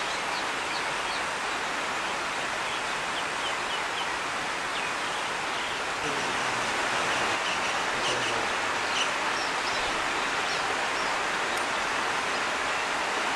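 Steady rushing outdoor noise with small birds chirping in short high notes scattered throughout.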